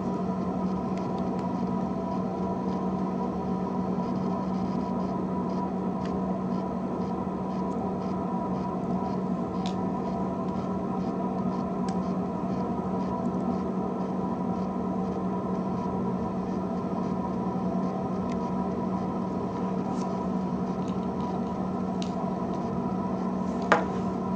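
Steady electrical hum, with a few faint small clicks and scrapes of a small T6 screwdriver backing screws out of a BlackBerry Tour's housing, and a sharper click near the end.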